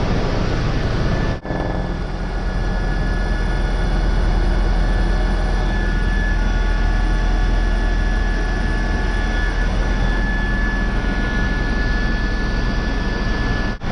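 Helicopter in flight heard from inside the cabin: a loud, steady low rumble of rotor and engine with a thin high whine over it. The sound dips for a moment about a second and a half in and again at the very end.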